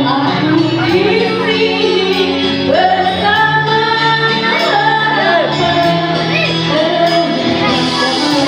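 A song with a woman singing over instrumental backing, her voice holding and sliding between long notes.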